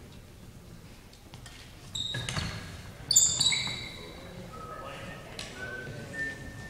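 Athletic shoes squeaking sharply on a gym floor as players move during a badminton rally, the loudest squeal about three seconds in, with a few short sharp clicks of racket hits.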